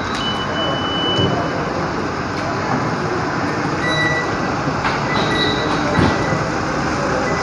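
Steady rushing noise of a moving vehicle, with a few brief thin high squeals.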